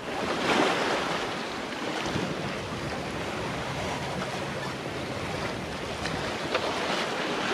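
Sea washing and splashing along a sailing yacht's hull as it sails through a choppy sea, with wind rumbling on the microphone. The wash swells briefly about half a second in.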